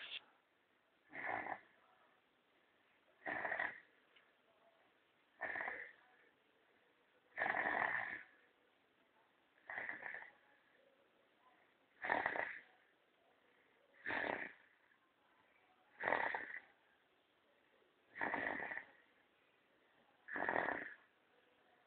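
A person snoring steadily in sleep, one snore about every two seconds, each a short raspy breath.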